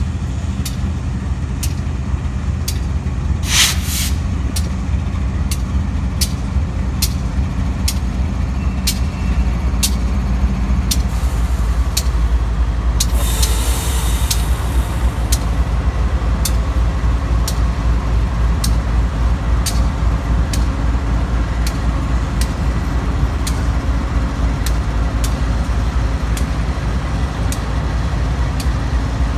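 Diesel-electric freight locomotives passing close at low speed: a deep, steady engine drone that grows louder about nine seconds in as the next unit comes by, over an even clicking of wheels on the rail about twice a second. Air hisses briefly about four seconds in and again for a couple of seconds around the middle.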